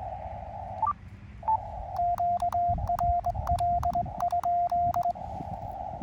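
Elecraft KX2 transceiver hissing with filtered band noise, a short rising beep and a half-second dropout about a second in, then Morse code from about two seconds: on-off sidetone beeps keyed by hand on KXPD3 paddles used as a cootie key, each keying stroke giving a sharp click. The code stops about five seconds in and the band noise carries on.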